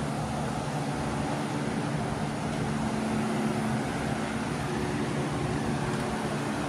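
Steady machine hum with a low droning tone, unchanging throughout, like a fan or motor running continuously in the shop.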